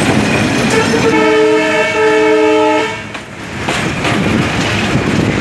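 Diesel locomotive's horn sounding for about two seconds as a chord of steady tones, cutting off sharply, as a freight train passes close by. After it, the freight wagons roll past with rhythmic wheel clicks over the rail joints.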